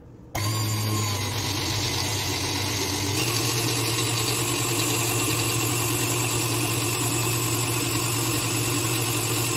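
KitchenAid Classic stand mixer running steadily, its motor humming as the beater churns thick red velvet cookie batter until it is free of lumps. The sound starts suddenly about half a second in.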